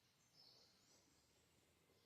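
Near silence with faint bird chirps and calls in the background.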